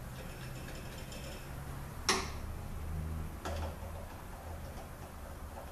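Small metal parts and a hand tool clicking against a transmission valve body as a bolt is set in place, with one sharp metallic clack about two seconds in and a softer knock a second and a half later.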